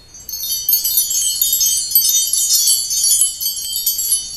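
Wind-chime sound effect: a dense shimmer of many high, tinkling notes that sets in just after the start and rings on steadily. It marks a scene transition from day to night.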